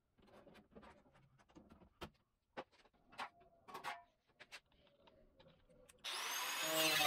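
Faint scattered rustles and clicks of masking tape being handled and pressed onto rusted sheet metal. About six seconds in, loud guitar music comes in suddenly.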